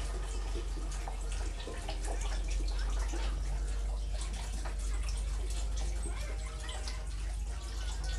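Chicken stock poured from a carton into a soup pot, a steady splashing pour of liquid into liquid.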